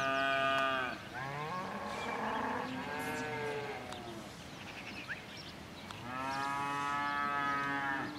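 Blonde d'Aquitaine calves mooing: a call at the start, several overlapping moos in the middle, and one long moo near the end.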